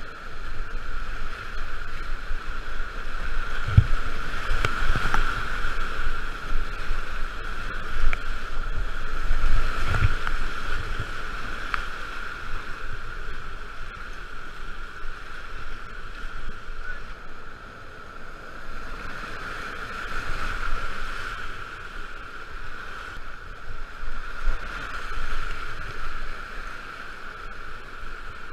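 Whitewater rapid rushing and splashing around a kayak, a steady loud wash with a few heavy low thumps, the strongest about 4 and 10 seconds in.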